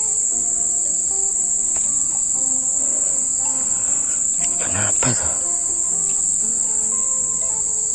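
Steady, high-pitched drone of insects, unbroken throughout, with faint background music notes underneath. A brief rush of noise about five seconds in.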